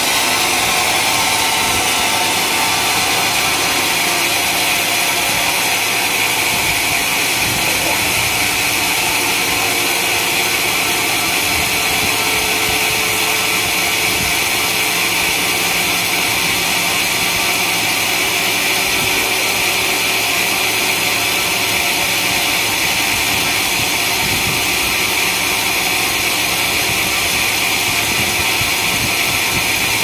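Large band sawmill blade cutting lengthwise through a coconut-palm (glugu) log: a steady, unbroken hiss and whine of the blade in the wood.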